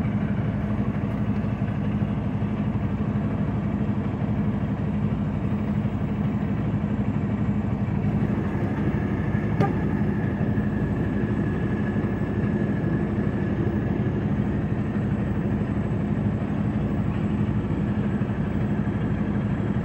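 Truck engine idling steadily with an even, low hum; one light click a little before halfway.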